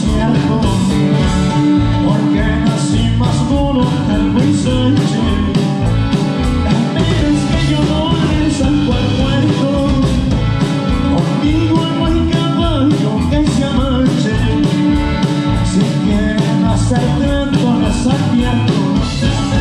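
A live norteño band plays: button accordion over acoustic guitar, electric bass and a drum kit keeping a steady beat.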